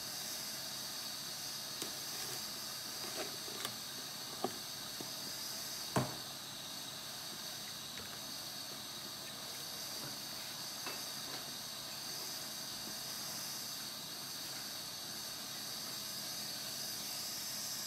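A steady high hiss, with a few faint clicks and one sharper tap about six seconds in.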